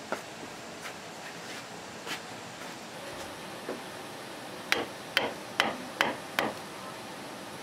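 Hammer blows: a few scattered light knocks, then a run of five quick, sharp strikes about 0.4 s apart in the second half.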